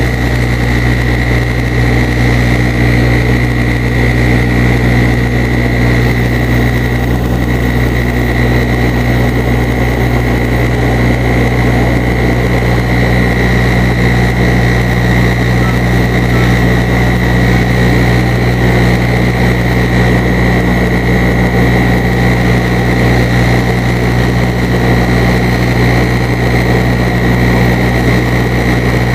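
Turboprop airliner's engines and propellers running steadily in flight, heard inside the passenger cabin: a constant low hum with a steady high whine above it.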